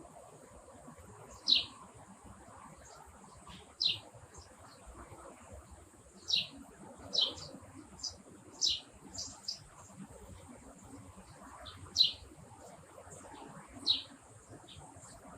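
Birds chirping: about a dozen short, sharp chirps that each drop quickly in pitch, coming at irregular intervals, some in quick pairs, over a faint steady high hiss.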